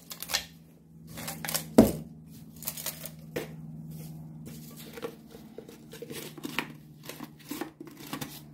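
Plastic rustling and crinkling with scattered light clicks and one sharp thump about two seconds in, from handling a plastic-covered glass mill jar of dried snail shells and eggshells, over a faint steady hum.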